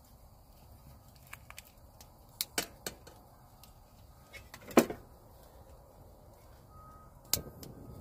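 Clicks and knocks of a gas cartridge being handled and fitted to a hose-fed camp-stove burner, with a louder knock about five seconds in. Near the end a sharp click as the burner is lit, followed by the steady low rush of the gas flame.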